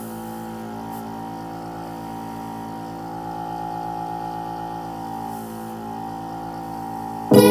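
Background music in a quiet held passage: a sustained chord of several notes that shifts slowly, without a beat, until the full music comes back in near the end.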